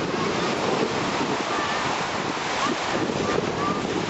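Steady wash of sea surf with wind rushing over the microphone.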